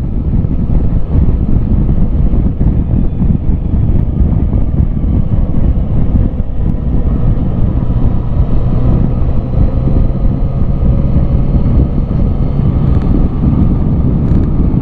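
Motorcycle underway at road speed: a loud, steady wind rush on the microphone over the engine's even drone.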